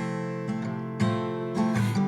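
Background song: acoustic guitar strummed chords between sung lines, with a new strum near the start, about halfway through and about a second in.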